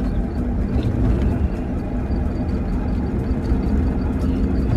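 Steady rumble of road and wind noise from a moving electric three-wheeler, with a faint even motor hum.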